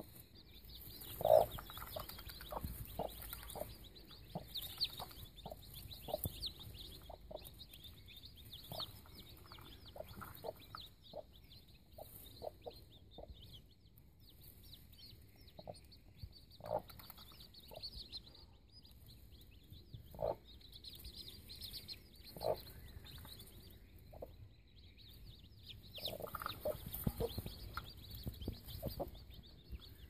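Mother hen clucking in short, scattered calls, calling her day-old chicks to food, with one loud cluck about a second in. Newly hatched chicks peep high and continuously throughout.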